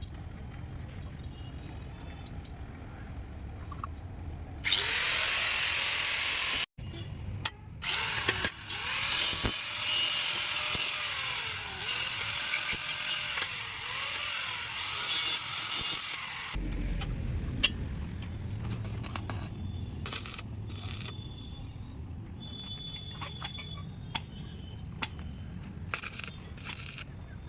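Handheld electric power tool working metal, loud and harsh for about twelve seconds in the middle, with a brief cut-out about two seconds after it starts. Its motor pitch dips and recovers again and again as the tool is pressed into the work. Before and after, there is a lower background rumble with scattered clicks and taps.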